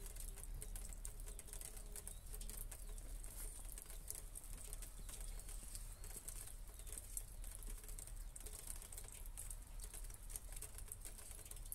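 Light rain: scattered raindrops ticking irregularly on the wooden slats of a bench and the tiled paving.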